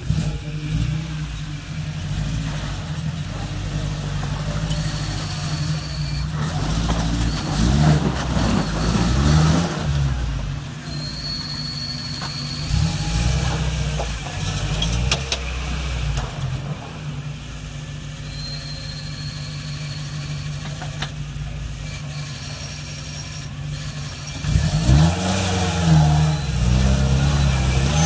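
Solid-axle-swapped Toyota Tacoma's 3RZ four-cylinder engine running under load as the truck crawls over rock, revving up in bursts and dropping back, with the biggest revs about a third of the way in and again near the end, and a few sharp knocks midway.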